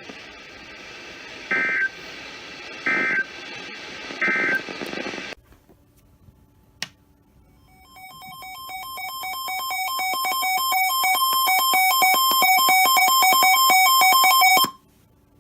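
Three short warbling two-tone digital data bursts of the NOAA Weather Radio SAME code, marking the end of the warning message, over broadcast hiss that cuts off after them. A weather radio receiver's electronic alert alarm follows: rapid alternating beeps that grow steadily louder for about seven seconds, then stop abruptly.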